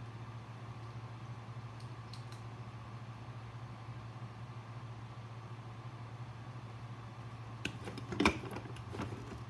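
Handling noises of a wire lead and a clear heat-shrink sleeve being slid over a small step-down converter. There are a few faint clicks about two seconds in, and a brief clatter and rustle about eight seconds in as the lead is laid down on the rubber bench mat. A steady low hum runs underneath.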